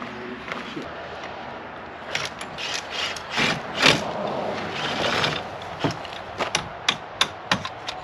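Ratchet wrench clicking, mixed with metal-on-metal clinks and short scrapes, as nuts are run onto the outboard motor's mounting bolts. The clicking starts about two seconds in, comes in irregular bursts, and turns into sharp single clicks near the end.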